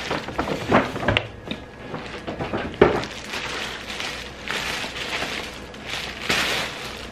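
Clear plastic wrapping crinkling and rustling in bursts as a wrapped tote bag is lifted and turned by hand, with a single sharp knock about three seconds in.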